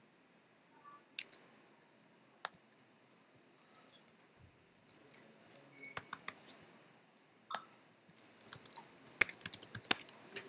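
Typing on a computer keyboard: a few scattered single clicks, then a quick, dense run of keystrokes over the last couple of seconds.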